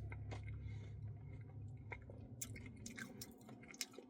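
Faint close-up chewing of a Reese's Pieces cookie dough Blizzard: soft mouth sounds with scattered small crunchy clicks.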